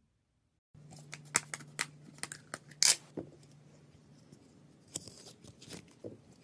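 Slime being worked by hand up close: a run of sharp clicks, crackles and small pops over a steady low hum. The sounds come thickest in the first couple of seconds, and the loudest is a snap about three seconds in.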